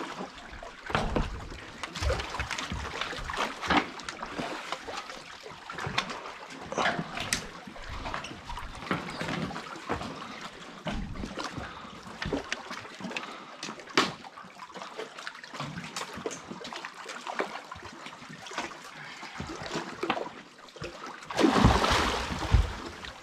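Water trickling and dripping as a trotline is pulled hand over hand from a boat, with many small knocks and clicks. About 21 seconds in, a hooked catfish thrashes at the surface in a loud splash.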